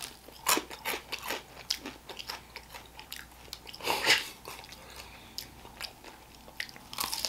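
Biting into and chewing a crispy lemon pepper fried chicken wing: a run of short, irregular crunches.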